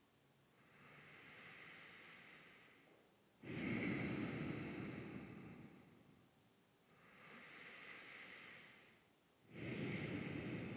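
A man's deep, slow, audible breathing while holding downward dog: two full breath cycles. Each is a quieter, drawn-out breath followed by a louder breath that starts abruptly, about 3.5 and 9.5 seconds in.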